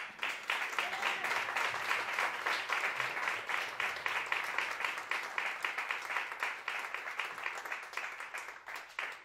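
Audience applauding, many people clapping at once; the clapping thins out and fades near the end.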